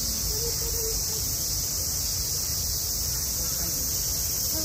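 Steady, high-pitched chorus of summer cicadas, with faint voices of people in the background.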